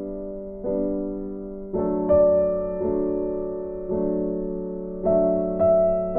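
Soft background music played on piano or keyboard: slow chords and melody notes that strike and then fade, about one to two a second.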